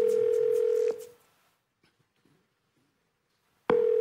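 Telephone ringback tone heard down the line: one steady tone lasting about a second, a pause of nearly three seconds, then the tone again near the end. The call is ringing at the other end and has not yet been answered.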